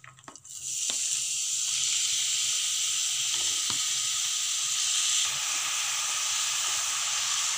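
Grated bottle gourd sizzling steadily as it fries in hot ghee in a kadhai, the sizzle starting about half a second in as the gourd goes into the pan. A few light clicks sound near the start.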